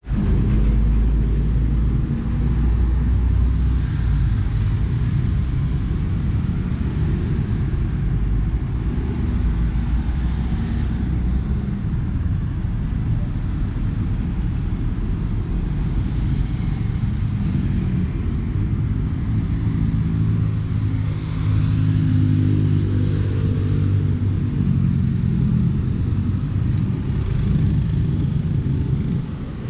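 A motor engine running close by: a steady low rumble, heaviest in the first third. A humming engine tone comes through more strongly past the middle.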